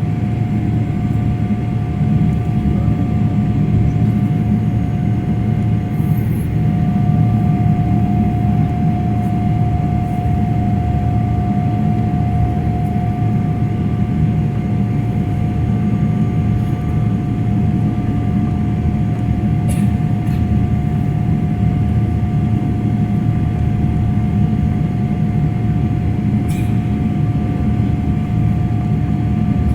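Jet airliner engines and airflow heard from inside the passenger cabin: a steady low roar with a thin steady whine above it and a few faint clicks.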